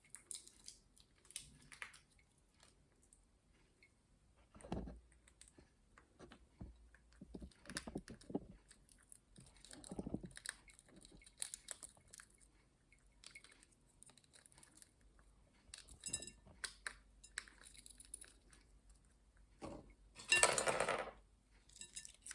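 Green-cheeked conure working walnut pieces with its beak: scattered small crunches, clicks and taps of nut and shell bits against a table and bowl. A louder, noisy burst of about a second comes near the end.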